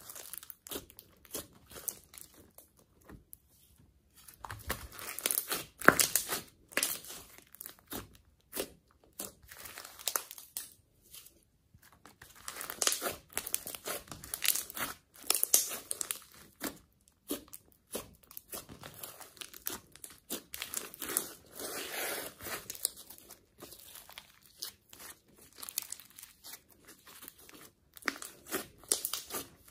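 Hands kneading, squeezing and poking a lump of glossy slime mixed with clay and glitter: a stream of irregular sticky clicks and crackles as the slime is pressed and pulled apart, with brief pauses between handlings.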